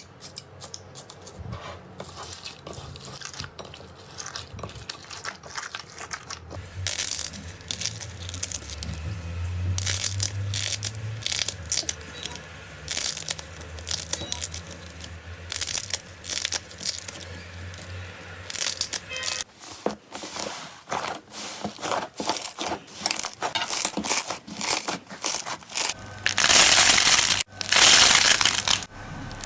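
Slime being squeezed, stretched and poked close to the microphone, giving quick sticky crackles and clicks, with a louder spell of dense crunching near the end.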